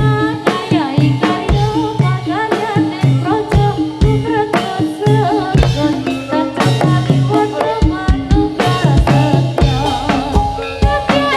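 Loud live traditional music: regular drum strikes with a wavering, sliding melody line over them.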